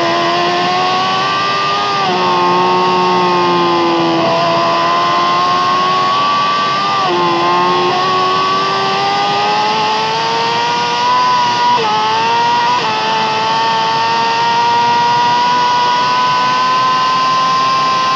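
Yamaha R6's inline-four engine with an Akrapovic exhaust, running hard at high revs. Its pitch climbs steadily and drops sharply about three times as it shifts up through the gears, with wind rush underneath.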